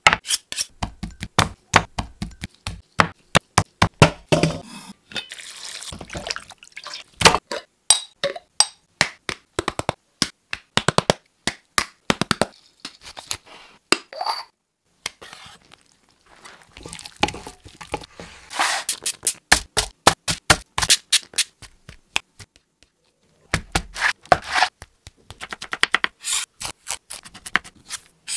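Close-miked food-prep sounds: a long run of sharp taps, knocks and clinks with a few short pauses. They include a spoon pouring corn flour over chicken in a stainless steel bowl and, near the end, quick strokes of a knife chopping ginger on a bamboo cutting board.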